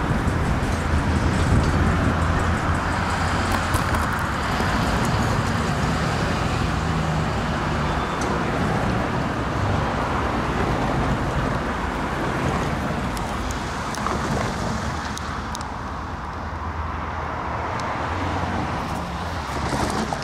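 EMD diesel locomotives, a GP15-1 leading a GP40-2, running light as they pull away into the distance. Their engines make a steady low rumble that gradually fades.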